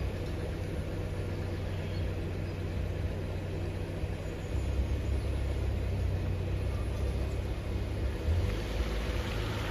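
Low rumble of a Volkswagen SUV's engine idling, getting louder about four and a half seconds in as it pulls away, with tyre hiss on the wet road near the end.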